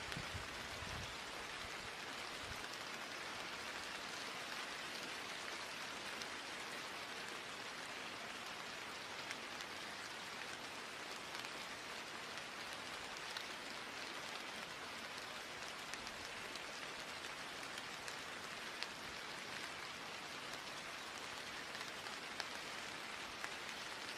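Steady rain: an even hiss with a faint patter of drops.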